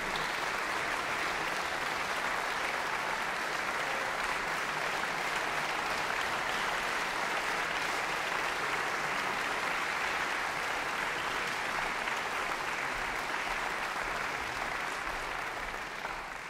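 Audience applauding steadily, starting to fade near the end.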